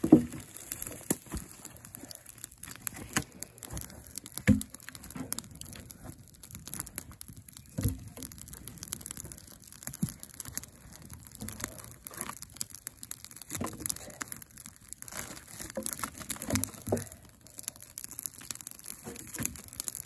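Wood campfire crackling, with irregular sharp pops and snaps and a few louder knocks.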